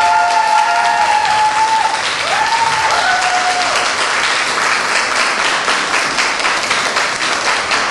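Audience applauding steadily, with a few drawn-out vocal cheers over it in the first three seconds. The clapping stops abruptly just after the end.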